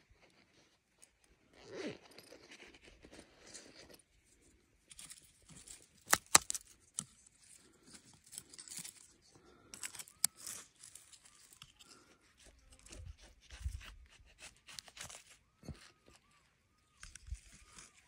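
Close rustling and crunching of foliage and dry stony soil being brushed and handled at close range, in scattered short bursts, with a few sharp clicks about six and ten seconds in.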